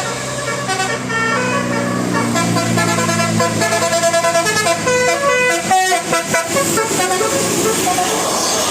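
Bus 'telolet basuri' multi-tone musical air horn playing a quick melody of short, changing notes, several a second. Near the end the tune fades into a steady rushing engine noise.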